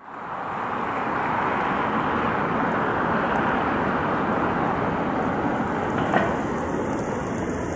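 VL10 electric locomotive hauling a freight train on approach: a steady rushing noise of the locomotive and train running. It fades in over the first second, and a single short knock comes about six seconds in.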